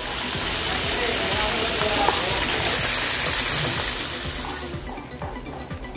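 Hot oil sizzling and bubbling around breaded chicken drumettes as they deep-fry in a pan, a loud steady hiss that fades out about four and a half seconds in.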